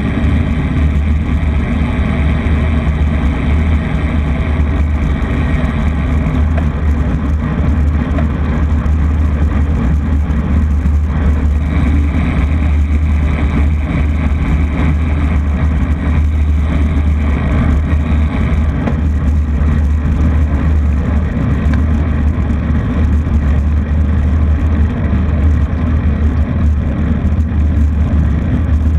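Steady vehicle running noise on the move: a constant deep engine hum under an even rush of road and wind noise, holding the same level throughout.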